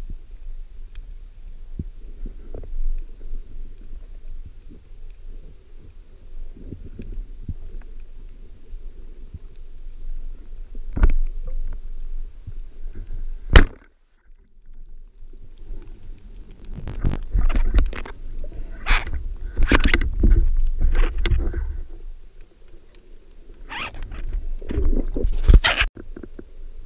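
Low underwater rumble of water, then about halfway through a single sharp crack as a band-powered speargun fires. After a short hush come repeated bursts of clicking and clattering as the shaft and the speared fish are hauled in and handled.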